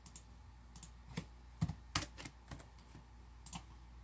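Faint computer keyboard typing: a slow, irregular scatter of light key clicks as a file name is typed in to save the file.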